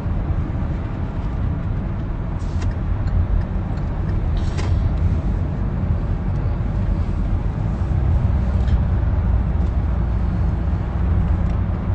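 Steady low rumble of a car heard from inside the cabin, with a few light clicks.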